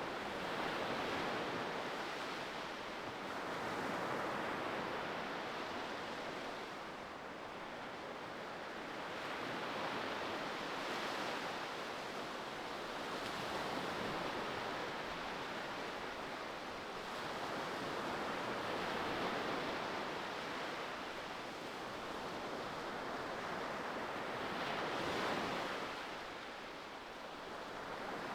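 Ocean waves washing onto shore: a continuous rushing surf that swells and eases every few seconds, with the strongest swell near the end.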